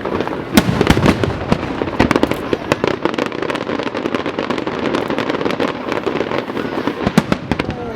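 Aerial fireworks bursting in quick, overlapping succession: a dense run of sharp bangs over continuous crackling, with a few louder reports standing out.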